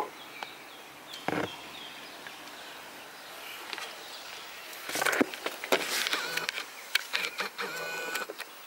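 Footsteps in slides on the truck's perforated metal step and a run of knocks and clatter as someone climbs up into the cab.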